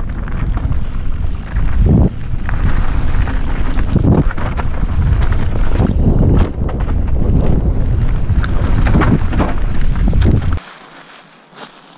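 Heavy wind buffeting on a helmet-mounted GoPro microphone as a mountain bike rides down a rough dirt and rock trail, with repeated knocks and rattles from the bike going over bumps. It cuts off abruptly about ten and a half seconds in.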